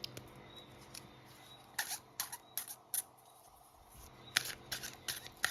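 A deck of tarot cards being handled and shuffled: a run of short, sharp clicks and snaps at an uneven pace, getting busier near the end.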